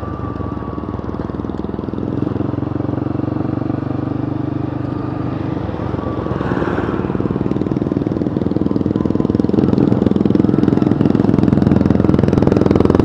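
Yamaha Scorpio 225's single-cylinder four-stroke engine running while riding, heard from the handlebar. The engine note shifts in pitch a couple of times and grows louder over the last few seconds.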